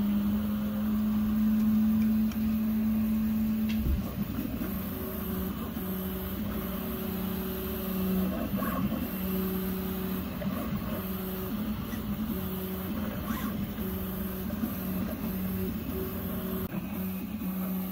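Original Prusa i3 MK3 3D printer's stepper motors whining as the print head lays down layers of a large print. There is a steady tone for the first four seconds, then the pitch switches back and forth between a low and a higher note about every second as the head changes direction. A single knock comes about four seconds in.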